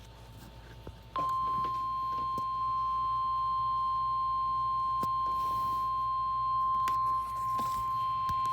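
NOAA Weather Radio 1050 Hz warning alarm tone: one steady tone that starts about a second in, after faint receiver hiss. It is the signal that a weather warning announcement follows.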